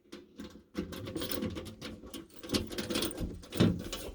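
Handling noise from a fire alarm control panel being worked on: a quick, uneven run of small clicks, scrapes and rattles starting about a second in, with a few louder knocks.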